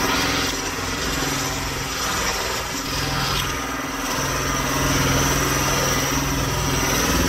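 Engine of a firewood processor running steadily while its splitter pushes a log through the wedge. Its pitch shifts slightly a few times.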